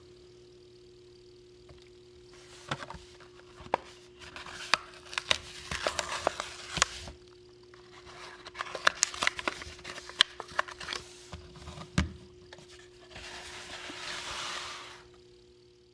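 A die-cast toy car's plastic blister pack and cardboard backing being opened by hand: crackling, scraping and clicking plastic with one louder knock about twelve seconds in, then a couple of seconds of rustling.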